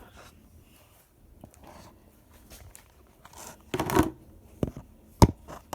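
Kitchen handling sounds while preparing the drink: a short loud rustle or scrape a little past halfway, then a few sharp knocks of containers being set down near the end.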